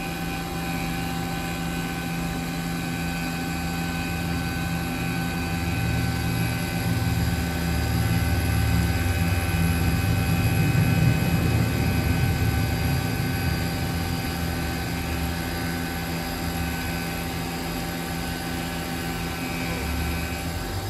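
Small milling machine's spindle running steadily with a tiny end mill taking one light finishing pass, about a thousandth of an inch, on a dial-indicator part. A steady whine over a low hum that grows louder for a few seconds in the middle.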